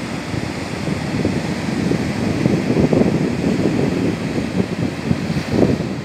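Storm surf breaking and washing up a sandy beach in a continuous rush, with strong wind buffeting the phone's microphone in gusts.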